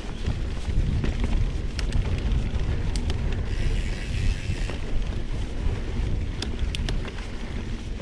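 Mountain bike ride on a sandy dirt trail: steady wind buffeting on the microphone over the rumble of the tyres rolling on the dirt, with a few sharp clicks and knocks, several close together near the end, and a brief rise of hiss midway.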